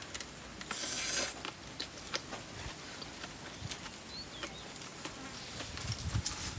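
A housefly buzzing close by, loudest about a second in, over small clicks and crunches of eating and a few short, faint high chirps.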